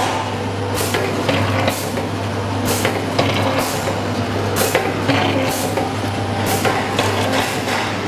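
Liquid (jelly) packaging machine running, a steady hum with a sharp mechanical clack about once a second as it cycles.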